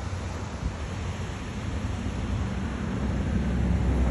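Wind buffeting a phone microphone on a moving bicycle: a steady low rumble with a hiss over it, growing louder near the end.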